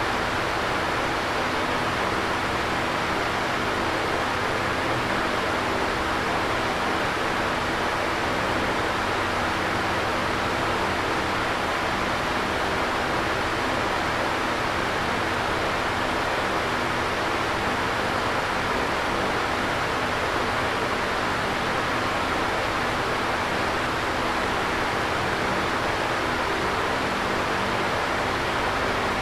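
Electric fan running steadily: an even whooshing air noise with a faint motor hum beneath it.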